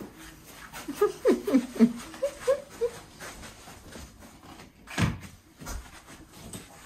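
Quiet hotel room with a few short, soft vocal sounds from a person's voice early on, then a single dull thump about five seconds in.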